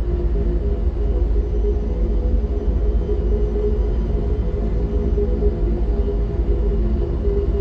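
Designed sci-fi reactor ambience: a steady deep rumble under a droning hum of several layered tones that waver slightly.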